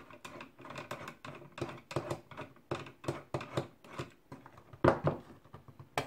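Screwdriver working the corner screws on the bottom of a small metal-and-plastic mini PC case: a run of irregular small clicks and taps, with a louder knock about five seconds in.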